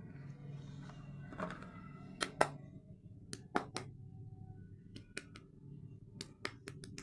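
Soap bars and their packaging handled close up: a soft rustle, then a string of sharp taps and clicks, the loudest about two and a half seconds in.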